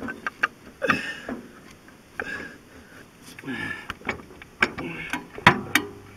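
Metal clicks and knocks of a tractor brake housing being worked onto the splined brake shaft while the brake disc's splines are lined up with the shaft's, with short vocal sounds from the man working in between.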